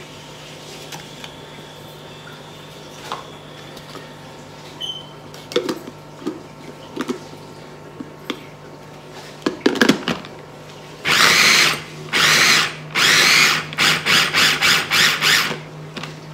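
Electric mini food chopper pulsed to chop onion: a few longer runs of the motor and blade, then a quick string of short pulses. Before that come several light knocks as onion pieces are dropped into the plastic bowl and the lid is set on.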